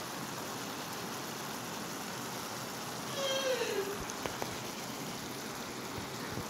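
Dal mash simmering in oil in a pan, a steady bubbling sizzle. A little past halfway a cat meows once, a single call that falls in pitch.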